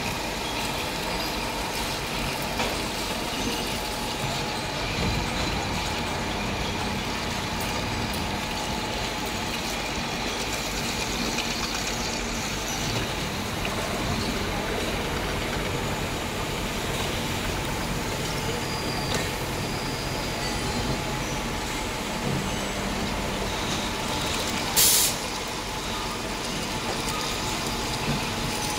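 Machine shop drilling spindle running steadily as it drills into steel parts clamped in a fixture under flood coolant: a constant mechanical hum with a faint steady tone. A short, loud hiss cuts in about 25 seconds in.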